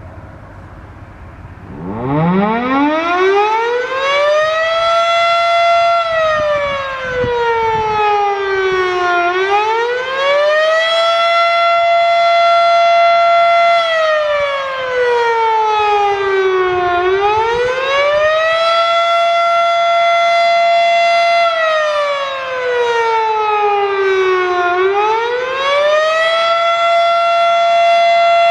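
Federal Signal Model 5 electromechanical outdoor warning siren winding up from a low growl about two seconds in, then sounding a fast wail: the pitch rises, holds at its peak for a couple of seconds, and falls, over and over, about every eight seconds.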